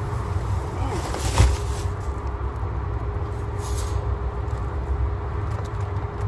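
Plastic grocery bags rustling as they are loaded into a car, with one sharp knock about a second and a half in, over a steady low rumble.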